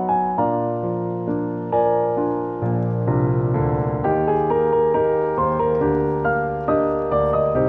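Background music: a piano playing a gentle melody over sustained chords.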